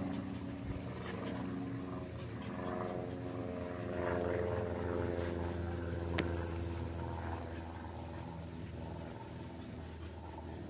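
An engine running steadily, a low hum with a fuller, higher tone for a few seconds in the middle. A single sharp click about six seconds in.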